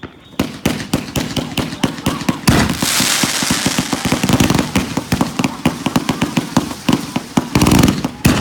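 Fireworks going off: a rapid, unbroken run of sharp cracks and pops starting about half a second in, with a hissing rush under the cracks from about two to four and a half seconds in.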